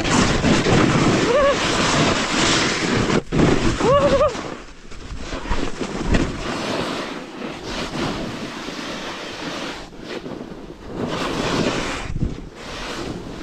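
Snowboard sliding and carving down a steep snow slope: the board scrapes and hisses over the snow while wind rushes over the camera's microphone. Loudest in the first few seconds, then quieter and more uneven.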